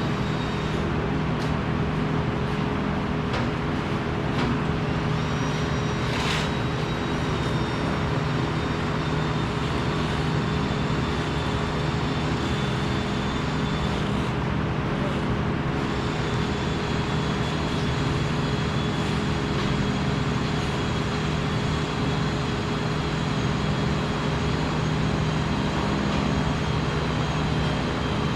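Steady machinery hum over a constant noise bed, with a faint high whine and a few brief clicks.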